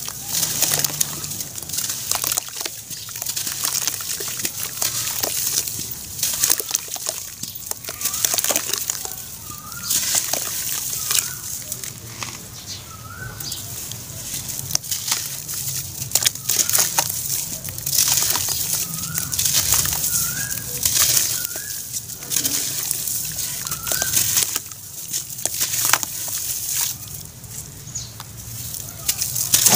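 Soaked slabs of charcoal ash being squeezed and crumbled by hand in a plastic tub of water: wet, gritty crunching with sloshing and splashing, in many short strokes.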